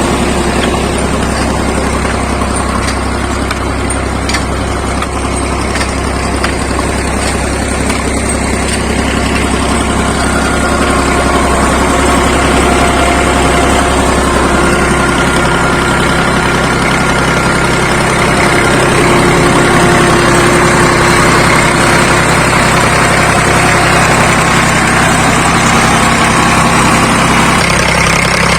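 Second-hand diesel tractor engine running steadily, getting somewhat louder partway through.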